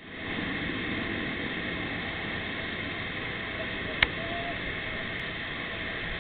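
Steady rush of surf breaking along the beach, heard as an even hiss, with a single sharp click about four seconds in.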